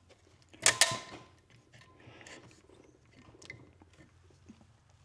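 Two sharp metallic clinks close together, a little under a second in, with a brief ring, as metal engine parts or tools knock against each other. Faint scattered taps and handling noises follow.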